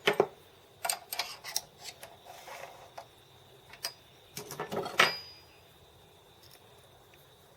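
Sharp metal clicks and knocks as a hand wheel, freshly bored out to 12 mm, is test-fitted onto its steel spindle shaft. A cluster of knocks comes about a second in, and the loudest knock comes about five seconds in.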